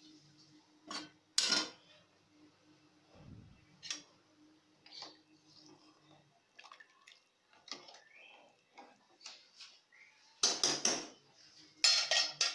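Metal utensils clinking and knocking against an aluminium cooking pot as a steel strainer and a spoon work in the broth. Scattered single clinks, with two louder bursts of clatter near the end.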